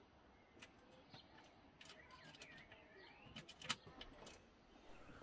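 Near silence with a few faint clicks and taps from handling the cable connection, the loudest a little over three and a half seconds in, and faint bird chirps about two to three seconds in.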